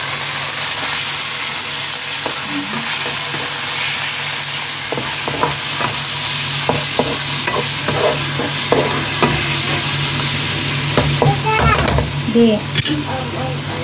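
Sliced beef tongue sizzling steadily in hot oil with browned garlic in a nonstick wok. It is stirred, with scattered scrapes and taps on the pan that come more often in the second half.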